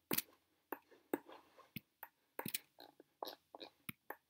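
About a dozen faint, irregular clicks, some followed by soft breathy noise.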